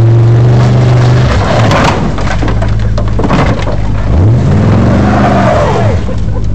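A pickup truck's engine revving hard, and the crunching and scraping of sheet metal as a stripped, wrecked car tips over onto its roof; the engine revs up and falls away again later.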